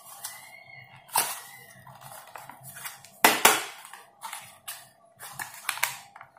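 Small cardboard product box being opened by hand: scattered rustling and clicking of the packaging, with a couple of sharp snaps, one about a second in and a louder one a little past the middle.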